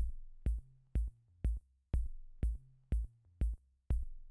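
Electronic intro music: a steady drum-machine kick on every beat, about two a second, each with a high hiss on top, over a short bass line that shifts between a few notes.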